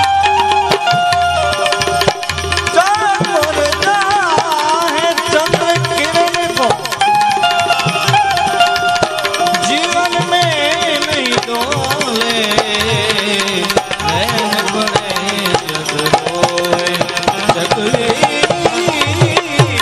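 Live Gujarati devotional song: a male voice sings a wavering, ornamented melody over held harmonium notes, with a hand drum keeping a steady rhythm.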